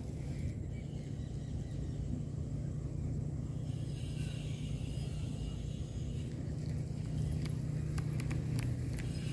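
A steady low engine hum, a little louder in the last couple of seconds, with a few faint clicks near the end.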